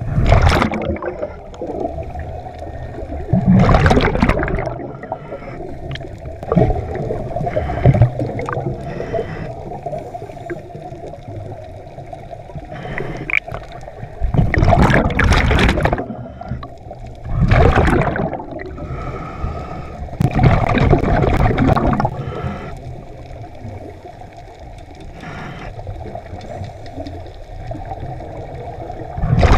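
Scuba regulator breathing heard underwater: bursts of exhaled bubbles every few seconds over a steady background hum.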